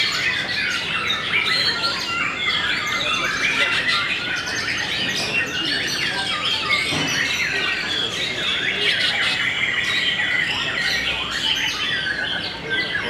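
Many caged white-rumped shamas (murai batu) singing at once in competition: a dense, unbroken overlap of short whistled and chirping phrases.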